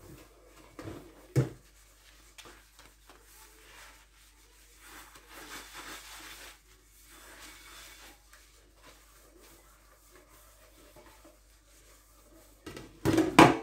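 A soapy sponge in a rubber-gloved hand scrubbing a stainless steel pot over a sink, with soft rubbing and handling noises. There is a sharp knock about a second and a half in and a louder burst of clatter near the end.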